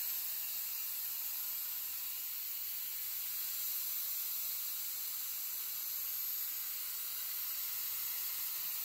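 Harbor Freight purple HVLP spray gun blowing compressed air with its trigger held, a steady high hiss. The gun is running full bore at 40 PSI with no paint.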